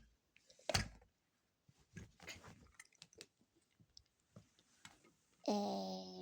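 Toys being handled and knocked together: a sharp knock, then scattered small clicks and rustles. About five and a half seconds in, a steady held hummed tone begins.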